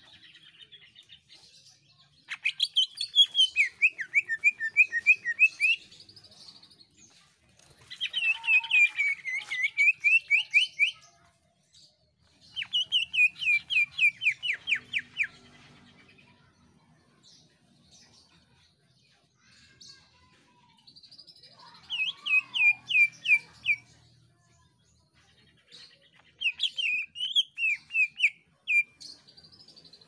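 Green leafbird (cucak ijo) singing loudly in five bursts, each a few seconds of rapid, sharp downslurred notes repeated several times a second, with short pauses between.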